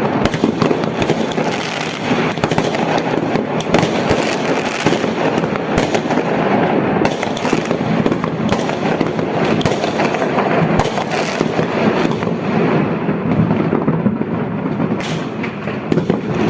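Fireworks display going off continuously: a dense rumble of bursts with many sharp cracks layered over it.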